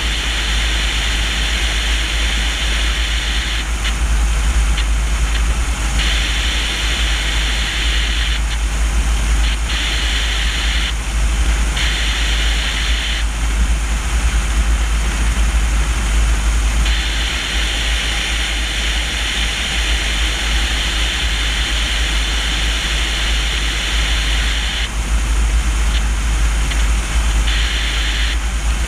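Airflow rushing past a camera mounted on the landing-gear leg of a Cessna 150E in flight: a heavy low wind rumble throughout, with a higher hiss that cuts in and out in stretches of a few seconds.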